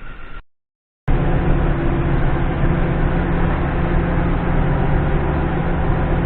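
A brief tail of music, a moment of silence, then about a second in a loaded concrete mixer truck's diesel engine starts running steadily under way, with a constant low hum and road noise.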